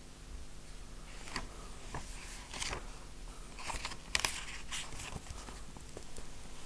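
Paper rustling as book pages are turned and handled: a string of short, soft rustles and taps, over a faint steady hum.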